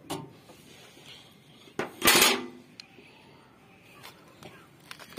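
Metal-on-metal clinks and clatter from hand tools being handled at the AC's service valves: a few light clicks and one louder clatter about two seconds in.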